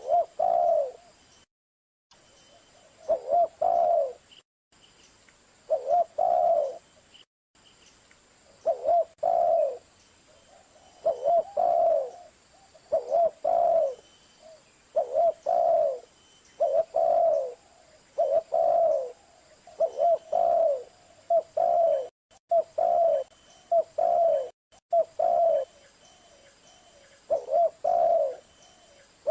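Spotted dove cooing: a short, low coo phrase repeated steadily, about one every two seconds, some fifteen times.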